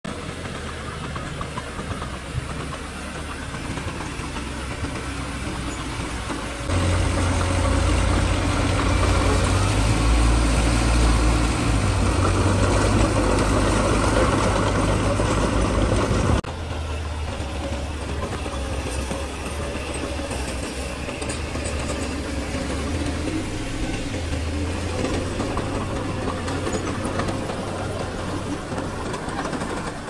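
Heavy construction machinery's diesel engine running with a steady low rumble. It jumps suddenly louder about seven seconds in and drops back suddenly a little past the middle.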